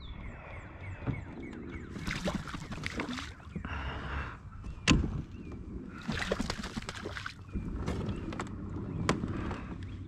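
A seagull hooked on a jerkbait lure thrashing on the water surface, its wings beating and splashing in two bursts, about two seconds in and again about six seconds in. A couple of sharp knocks come between them.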